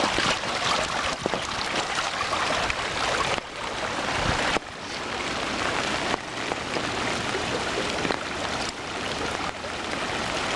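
Fast floodwater of a swollen river rushing past in a steady rush of noise, its loudness dropping suddenly a few times and swelling back.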